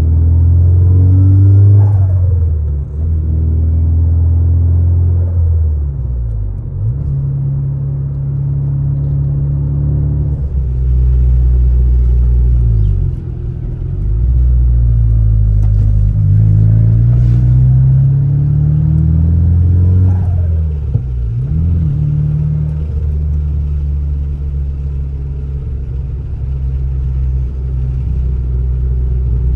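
Nissan SR20DET turbocharged four-cylinder engine pulling through the gears with its factory blow-off valve deleted: the engine note climbs steadily and drops sharply at each shift, several times, with a faint rising turbo whistle over some of the climbs.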